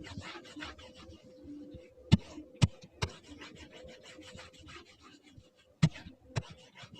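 Fingertip or stylus rubbing quickly back and forth over a touchscreen while colouring, a rapid run of short scratchy strokes, broken by five sharp taps on the device, two close together about two seconds in, one a second later, and two more near the end.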